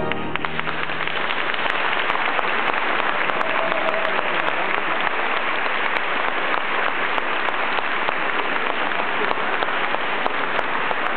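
Large crowd applauding in a cathedral, a dense, steady patter of clapping. An organ chord stops right at the start.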